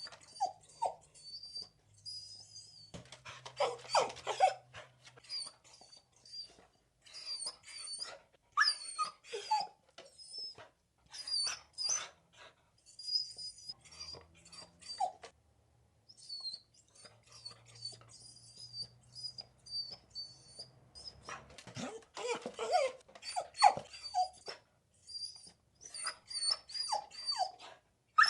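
Dogs whining and whimpering in a long string of short, high-pitched cries with brief pauses between them, louder about four seconds in and again near the end.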